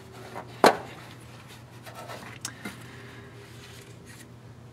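Plastic wiring connector of the downstream oxygen sensor being unclipped: one sharp click under a second in, then two fainter clicks a little after two seconds in, with light rubbing of gloved hands on the harness.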